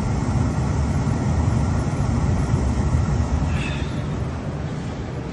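Old Rheem gas furnace running hot with burners lit and blower on: a steady low rumble of burner flame and moving air. The flames are dancing, which the tech puts down to blower air coming through a cracked heat exchanger. A brief faint high chirp comes about three and a half seconds in.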